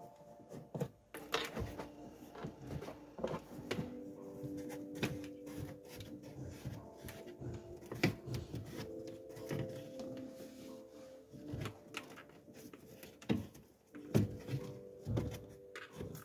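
Scattered clicks and light knocks of a plastic trim tool pressing a cable into the edge of a car's headliner trim, over soft background music with held notes.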